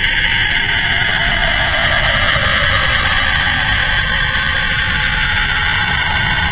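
The 'sound of Saturn': space-probe measurements of the planet turned into audio. A steady, eerie hiss over a low rumble, with one band of tone slowly falling in pitch.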